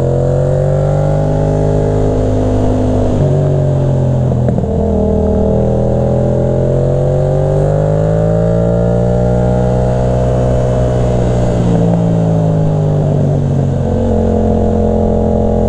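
Motorcycle engine pulling up a mountain road, its pitch rising and falling with the throttle. The note breaks and shifts twice, about three seconds in and again about twelve seconds in.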